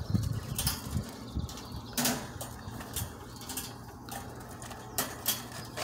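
Wire quail cage being handled: irregular metallic clicks and rattles as the cage door is worked open and hooked up, with the sharpest click about two seconds in.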